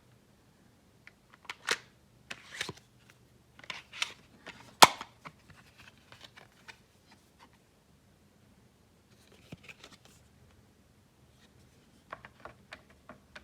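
Scattered plastic clicks and rustles of a toy transformation belt and its collectible cards being handled, with one sharp, loud click about five seconds in.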